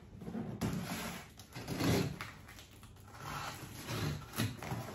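Cardboard boxes being shifted and set down, with a knock about two seconds in, then the scrape of a box cutter slicing through the packing tape on a cardboard box.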